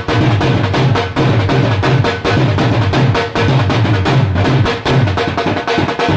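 Dhol drumming being played in a sound check: a fast, even rhythm of sharp strokes over a deep, repeating bass beat, with no pause.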